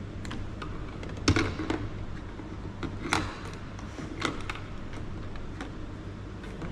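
Irregular sharp clicks and knocks of plastic parts being handled as a battery is plugged into a Huina 1594 RC excavator, over a steady low fan hum.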